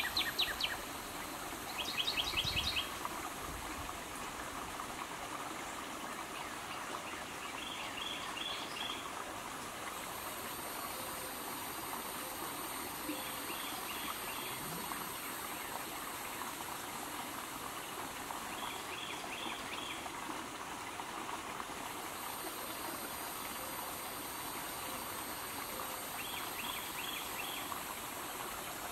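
Steady running water of a small stream. A short call of three or four quick high notes repeats every five to six seconds, and a rapid chirping trill sounds near the start. A thin, high steady buzz comes in twice.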